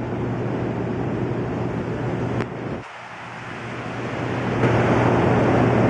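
Steady hum and rumble of the Hoover Dam's hydroelectric generators in the powerhouse hall, with a strong low drone. It cuts out after a click about halfway through, swells back, and comes in louder near the end.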